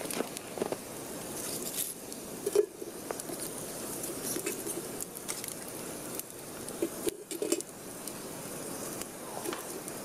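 Campfire coals and embers raked with a wooden stick and piled onto a metal pot lid: scattered scrapes, small clinks and knocks, over a steady hiss.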